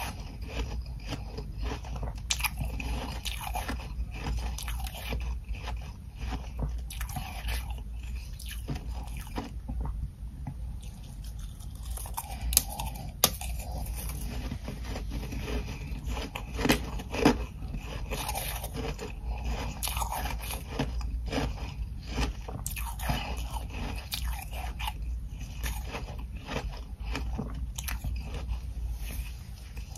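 Ice chunks coated in humidifier frost being bitten and chewed close to the microphone: dense, irregular crunching, with a few sharper, louder cracks around the middle.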